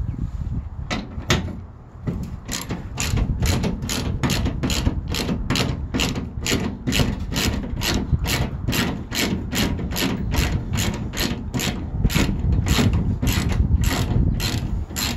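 Socket ratchet clicking as it backs out a 13 mm tailgate bolt. After two clicks about a second in, the clicking runs steadily at about three clicks a second.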